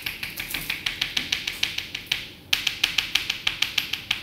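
Chalk tapping rapidly against a chalkboard, dotting speckles onto a drawing, about six sharp taps a second with a short pause about two seconds in.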